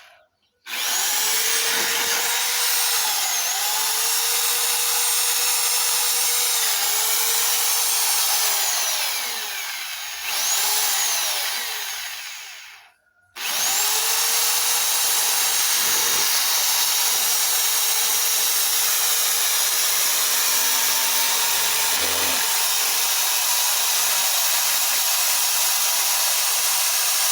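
A power tool running steadily with a high, hissing whine, stopping briefly about halfway through and then starting up again.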